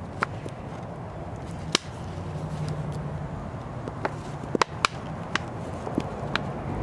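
Thin plastic of a two-litre soda-bottle planter clicking and crackling as the two halves are twisted apart: about eight sharp separate clicks, bunched in the second half, over a low steady hum.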